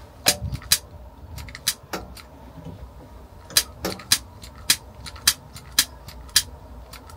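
A run of sharp, unevenly spaced clicks, about twenty of them with a pause in the middle, made while working a two-burner gas hob.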